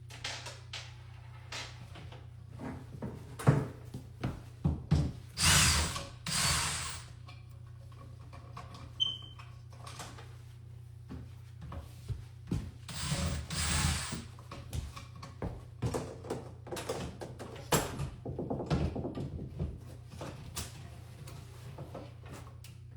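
Hand-tool work on a wall: scattered knocks and clicks with a few longer scraping strokes, over a steady low hum.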